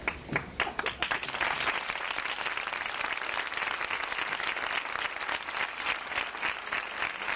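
Crowd applauding: a few scattered claps that build within about a second into steady, dense applause.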